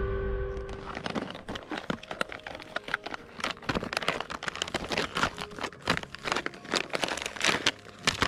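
Foil-lined Peak Refuel freeze-dried meal pouch being torn open across its top and handled: a dense, irregular run of crinkling and crackling.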